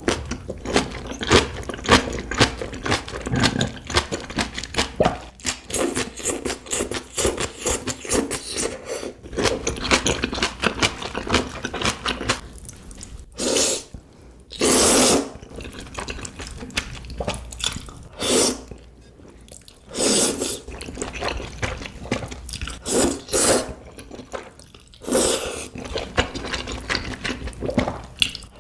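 Close-miked eating sounds: wet chewing and crunching, with a few louder, longer mouth sounds in between.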